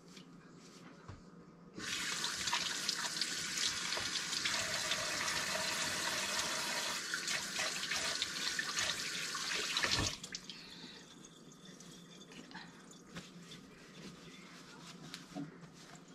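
Kitchen sink faucet running steadily for about eight seconds, then shut off abruptly.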